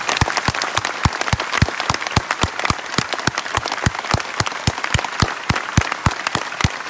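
Concert audience applauding after a spoken tribute, with one pair of hands clapping close by, steadily about four times a second, over the dense clapping of the crowd.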